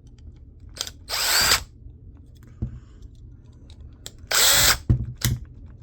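Power screwdriver spinning in two short bursts of about half a second each, backing screws out of laptop hard drive casings, with a few light clicks in between.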